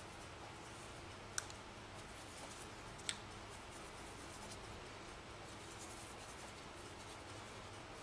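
Faint strokes of a paintbrush on a plaster-textured painting board over quiet room hum, with two sharp light clicks in the first few seconds, about a second and a half apart.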